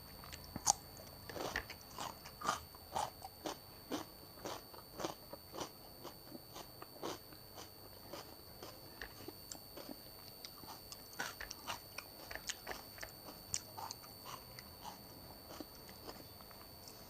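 Chewing crunchy raw cucumber: a steady run of crisp crunches, about two a second, loudest in the first few seconds and again a little past the middle.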